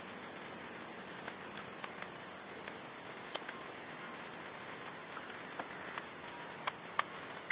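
Quiet outdoor background with scattered light clicks and snaps, the sharpest near the end: footsteps of a person walking through grass and twigs.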